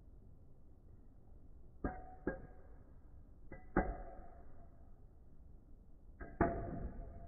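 Two customized Beyblade spinning tops clashing in a stadium. There are three collisions, about two, four and six seconds in, each a quick double click followed by a brief metallic-sounding ring.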